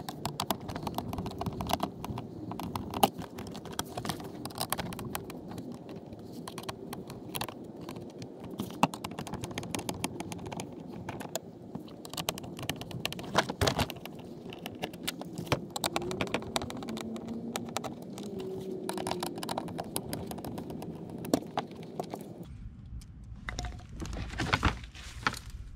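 A screwdriver backing out the screws of a plastic door-panel armrest piece, with many quick irregular clicks and ticks of the tool against the screws and plastic. A steady low hum runs underneath and stops near the end.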